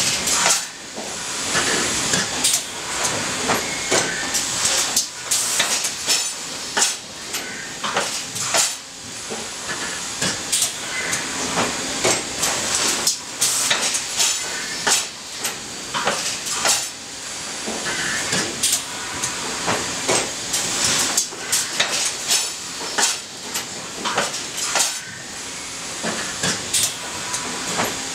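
Sencorp thermoformer running: irregular metallic clanks and knocks from its moving forming station and sheet-transport rails over a steady hiss of air.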